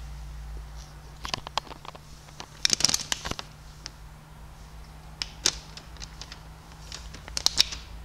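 Handling noise around a stationary Elektror S2 siren: scattered clicks and short crackly scrapes as fingers touch its housing and the camera is moved, in clusters about a second in, around three seconds in and near the end, over a low steady hum. The siren itself is not running.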